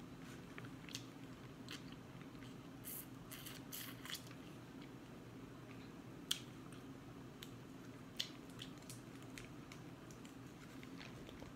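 Quiet close-up eating sounds: chewing, with small crackles and clicks as seafood is picked apart by hand inside a plastic boil bag. There are two sharper clicks a little past halfway, over a low steady hum.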